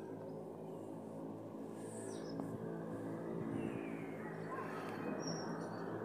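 A few short bird chirps over a steady low hum with a background hiss.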